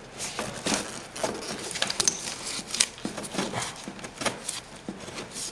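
Plastic-sheathed electrical cable being pulled by a gloved hand through a tight hole in wood framing: irregular scraping, rubbing and crackling clicks.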